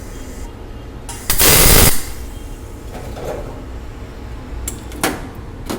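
Stick arc welder at about 55 amps striking on 1 mm sheet: one short burst of arc crackle, under a second long, for a tack weld. Two brief sharp clicks near the end.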